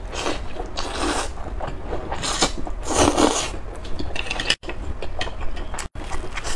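Close-up mouth sounds of eating a steamed scallop with garlic and glass noodles: about four wet slurps as the noodles and scallop are sucked off the shell, then chewing with small wet clicks of the mouth.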